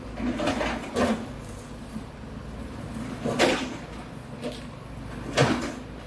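Hydraulic excavators demolishing a concrete-frame building: a steady engine drone underneath, with several crashes and clanks of concrete and debris breaking. The loudest crashes come about three and a half and five and a half seconds in.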